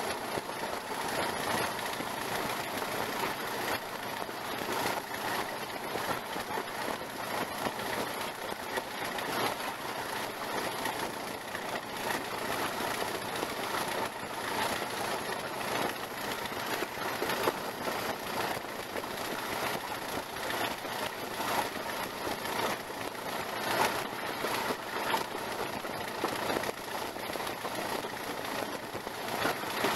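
Class 20 diesel locomotive running along the line, its English Electric V8 engine working steadily together with the noise of the wheels on the rails, heard from beside the cab. A steady mix of engine and running noise with frequent small knocks and no break.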